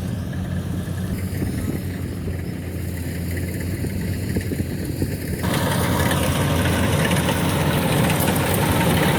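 Kubota combine harvester's diesel engine running steadily with a low hum. About five and a half seconds in, the machine's sound turns suddenly louder and noisier.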